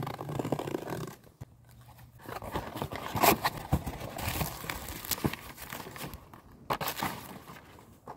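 A cardboard shipping box being cut open along its taped seam and its flaps torn back, with scratchy tearing and crinkling of packaging as the contents are pulled out.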